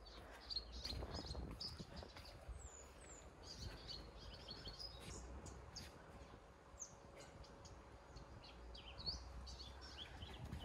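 Faint outdoor birdsong: scattered short chirps and quick whistled glides from several small birds, over a low steady rumble.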